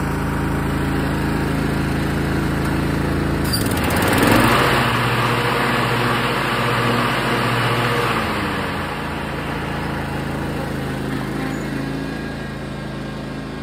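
Husqvarna riding lawn tractor's engine running as it drives past and away. The tone briefly dips in pitch as it gets louder about four seconds in, then fades toward the end.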